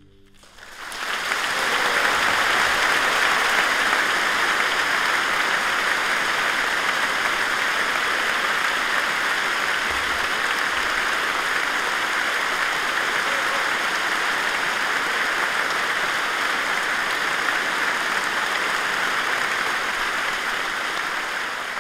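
Audience applauding, the clapping rising within the first second or so after the final chord has died away and then holding steady.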